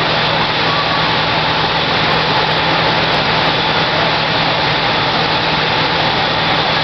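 Fire truck's diesel engine running steadily, an even drone with a constant low hum.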